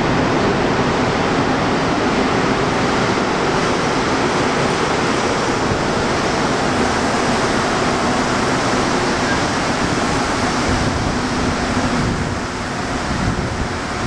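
Rubber-tyred Montreal Metro train arriving and pulling into the station: a loud, steady rush of tyre and running noise that eases slightly near the end as the train slows.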